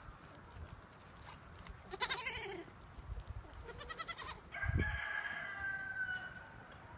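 Farm animal calls: a rooster crowing and goats bleating. There are two short calls, then a longer call lasting nearly two seconds in the second half, and a dull thump near the middle.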